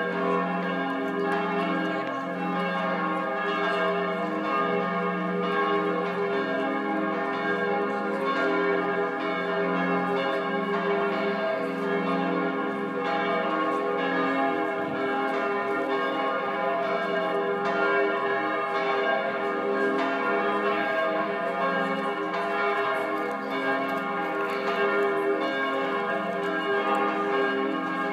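Several church bells ringing together in a continuous peal, their tones overlapping, with the lowest bell striking again and again at a steady pace.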